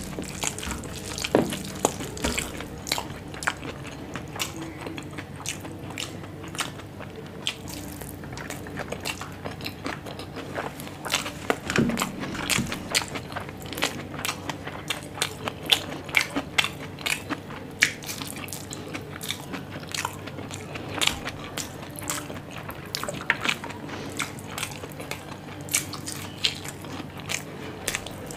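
Close-miked chewing, with many irregular wet mouth clicks and smacks, as a handful of Schezwan fried rice is eaten.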